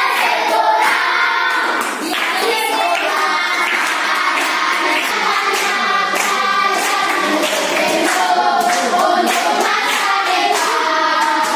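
A large group of children singing together loudly, with hand clapping through the song.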